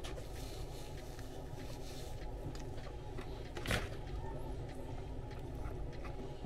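A person eating a sub sandwich: chewing and small handling noises over a steady low hum, with one short, loud noise about three and a half seconds in.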